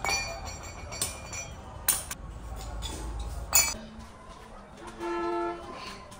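Clay pots knocking against each other with sharp clinks, twice, over low handling rumble. Near the end comes a short steady pitched note.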